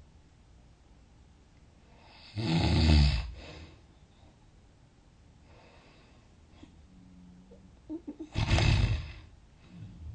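A sleeping person snoring loudly, twice, about six seconds apart: each snore lasts about a second. A few faint clicks come just before the second snore.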